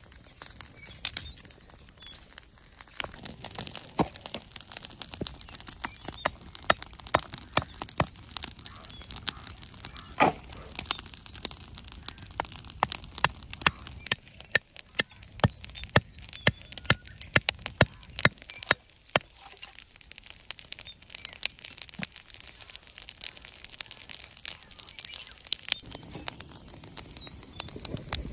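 Dry grass and twigs crackling and snapping as an open fire catches. In the middle stretch comes a run of sharp knocks, about two a second, as wooden stakes are driven into the ground with a wooden club.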